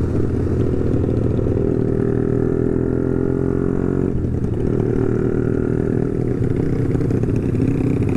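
Honda CB150R's single-cylinder engine running through a BSS aftermarket muffler while the motorcycle is ridden at a steady pace, with a brief dip and change in engine note about four seconds in.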